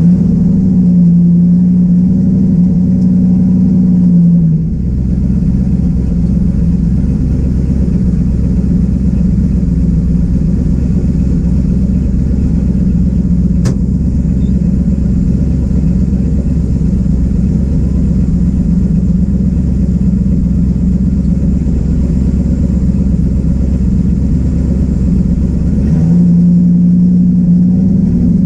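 Chevrolet S10 drag truck's engine idling steadily, heard from inside the cab. Its tone drops a little a few seconds in and rises again near the end, with a single sharp click about midway.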